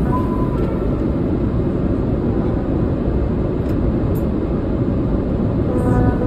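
Steady in-flight cabin noise of a Boeing 777-300ER: engine and airflow noise as an even, low hum that does not change.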